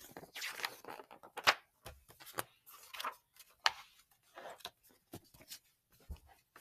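Paper pages of a picture book being flipped and handled: a run of short rustles and crackles with a few sharper snaps.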